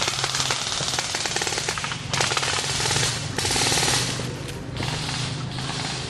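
Airsoft guns firing in rapid full-auto bursts: fast strings of sharp cracks, several bursts back to back, easing off in the last second or two.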